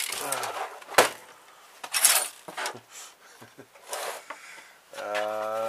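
A laptop being handled and turned over on a wooden table: clatter and knocks of its hard case against the tabletop, with a sharp knock about a second in and another about two seconds in.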